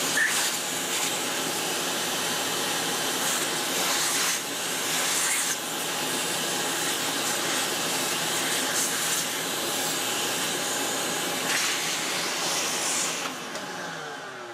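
An electric motor moving air runs with a steady, loud rushing hiss, cleaning sawdust off the opened saw motor's end and bearing. About 13 seconds in it is switched off and winds down, its pitch falling as it coasts.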